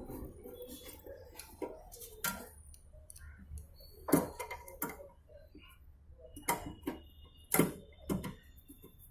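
Scattered sharp metallic clicks and taps, about half a dozen, from a screwdriver and screws as the screws holding a replacement microwave magnetron in place are fitted.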